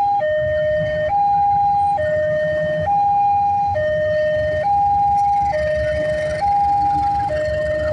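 Railway level-crossing warning alarm sounding: an electronic two-tone signal alternating steadily between a higher and a lower tone, each held just under a second. A low rumble runs underneath.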